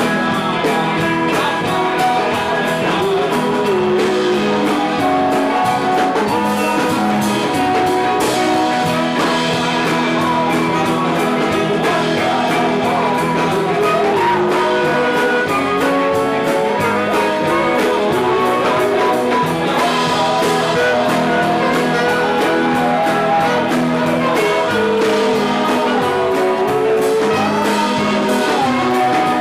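Live band playing a song: drums and guitar with a singer.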